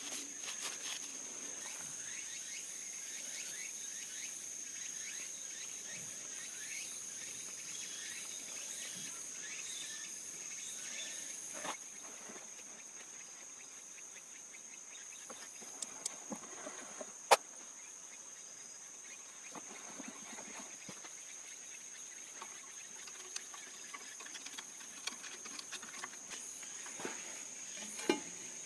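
Insects trilling on one steady high pitch throughout, with scattered light clicks and taps and one sharp click just past the middle.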